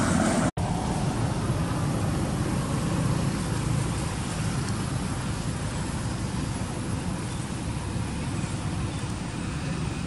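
Steady outdoor background noise, a low even rumble with no distinct events, cutting out for an instant about half a second in.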